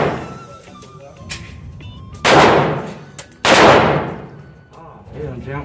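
Two 9mm pistol shots from a Canik TP9SF, a little over a second apart, each ringing out in the echo of an indoor range.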